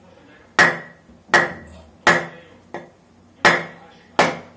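A turtle's shell struck by hand with a hard object wrapped in plastic: six sharp blows, about one every three-quarters of a second, one weaker than the rest, each with a brief ring, as the shell is broken open for butchering.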